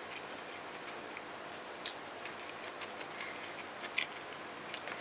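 Wooden chopsticks clicking and scraping against a ceramic bowl while eating, a few faint, sharp clicks over a steady hiss, the clearest about two seconds in and another near four seconds.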